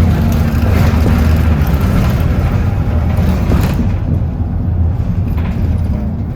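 Bus engine and road noise heard from on board: a steady low hum with a rushing haze above it that thins about four seconds in.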